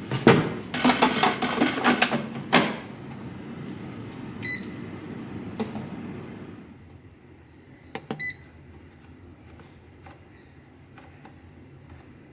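Air fryer basket being slid into the machine, rattling and ending in a clunk as it seats. A short high electronic beep from the air fryer's control follows, then clicks and a second beep, and faint clicks as the timer knob is turned.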